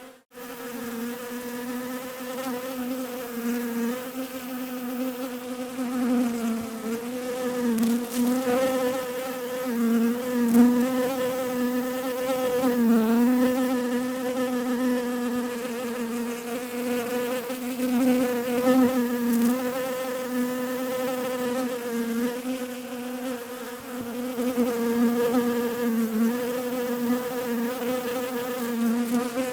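Bees buzzing: a continuous drone on one pitch with its overtones, wavering slightly up and down. It drops out for a moment right at the start.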